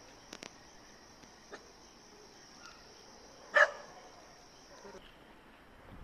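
Crickets trilling steadily on one high note, stopping near the end. About three and a half seconds in comes one short, loud, bark-like animal call, with a couple of faint clicks near the start.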